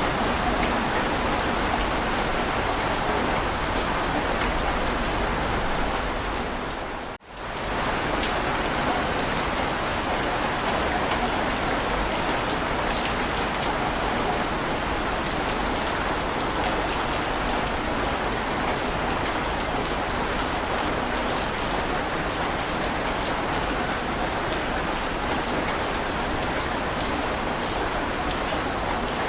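Heavy rain falling steadily, an even hiss of drops. About seven seconds in it dips out for a moment and returns at once.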